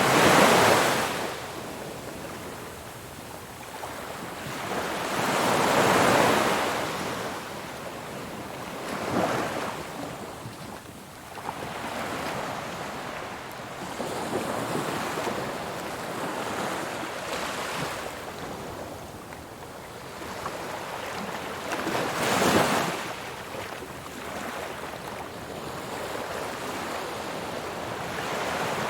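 Ocean waves breaking and washing in: a steady rush of surf that swells into four louder breaks spaced several seconds apart.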